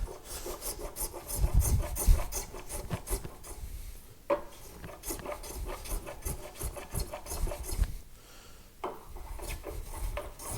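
Lie-Nielsen block plane shaving white oak in quick repeated strokes, trimming a dovetail corner's overhang flush. There is a short pause about eight seconds in.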